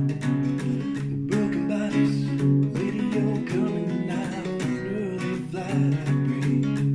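Music: an acoustic guitar strummed in a steady rhythm.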